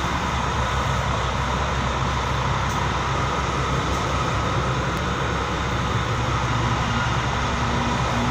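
Diesel engines of large intercity coaches running, a steady low hum under an even wash of traffic noise.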